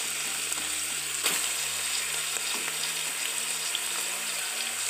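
Bacon, onion, garlic and sliced sausage sizzling in oil in an aluminium pressure cooker pan as raw chicken thighs are laid in, with small crackles throughout and a sharper knock about a second in.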